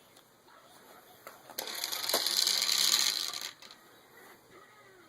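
Small hard objects rattling and clattering for about two seconds, starting about a second and a half in and stopping abruptly.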